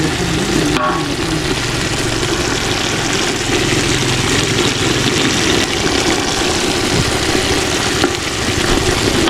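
Pot of chicken simmering over a firewood fire: a steady, loud rushing and bubbling that runs on without a break.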